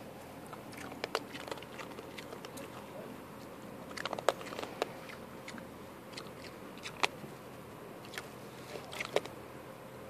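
An opossum eating dry pet-food kibble, making irregular sharp crunches as it chews, with a quick run of them about four seconds in.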